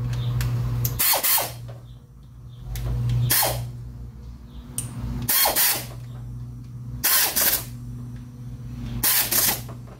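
Ratchet wrench tightening the camshaft timing-gear bolts on a Chevy 350 V8, a short burst of clicking about every two seconds, five times. A steady low hum runs underneath.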